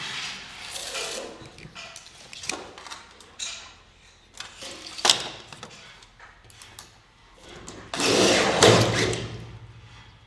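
Garage door installation work: scrapes and knocks of door parts being handled, with a sharp knock about five seconds in. About eight seconds in comes a louder burst with a low hum, from a power tool.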